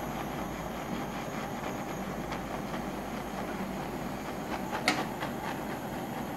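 Handheld gas torch burning steadily, its blue flame playing on a hardened steel strip. One sharp click sounds about five seconds in.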